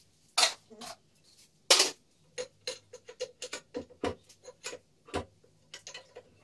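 Two sharp metal knocks, then a ratchet wrench clicking in quick strokes, about four clicks a second, working the bolts on a backhoe loader's gearbox casing.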